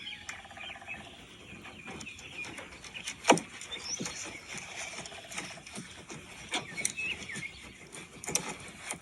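Scattered knocks and clicks of hands working over a turkey's foot, the loudest a sharp knock about three seconds in, with faint bird chirps in the background.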